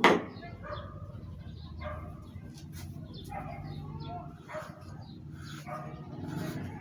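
One sharp hammer strike at the very start, then faint bird and animal calls in the background.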